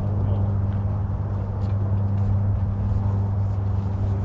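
An engine running steadily at one constant low pitch, a hum with no change in speed.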